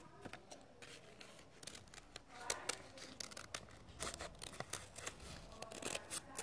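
Scissors snipping paper: a run of faint, irregular snips as a paper cutout is trimmed to shape.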